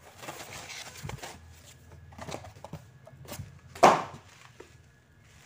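Packing paper rustling and crinkling as a parcel is unpacked by hand, with a few light knocks and one loud thump about four seconds in.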